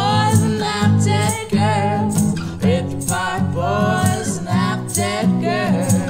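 A band's song playing: guitar and bass over a steady drum beat, with a wavering melody line on top and no words.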